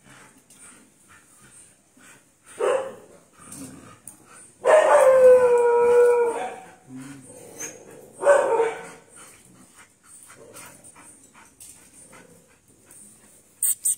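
A dog howling: a short cry, then a long drawn-out howl of about two seconds that sags in pitch at its end, then another short cry.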